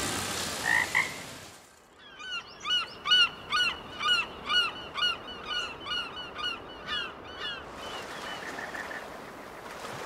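After background music fades out, an animal calls in a quick series of short, high, rise-and-fall notes, about two a second, growing fainter toward the end.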